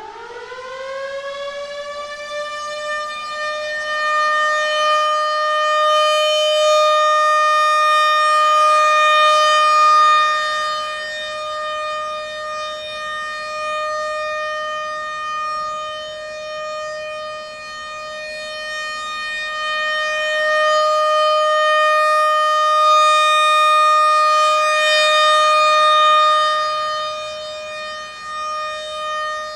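ACA PN-20 outdoor warning siren sounding the steady Alert signal. It finishes winding up in pitch in the first second or two, then holds one steady wail. Its loudness swells and fades twice as the rotating siren sweeps past.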